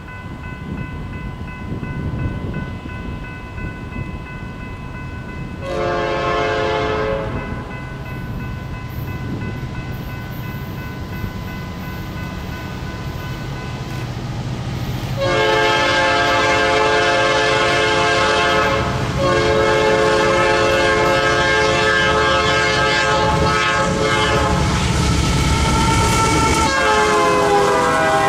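Norfolk Southern diesel locomotive sounding its chime horn, likely a Nathan P5A: one short blast, then two long ones, then a final blast whose pitch drops as the locomotive goes by. Under it, the engine and train rumble builds as the intermodal stack train approaches and its cars roll past.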